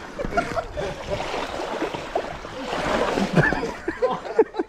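Mountain bike tyres splashing through a shallow, rocky creek, with knocks from the wheels over stones. The splashing is loudest about three seconds in.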